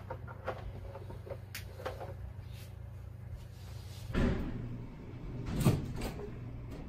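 A door being handled: faint clicks and rustles, then a dull thump about four seconds in and a sharper, louder knock a second and a half later, over a low steady hum.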